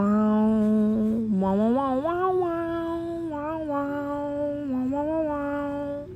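A woman humming a tune without words, in long held notes that glide up and down between pitches, with a brief dip about a second in and a stop just before the end.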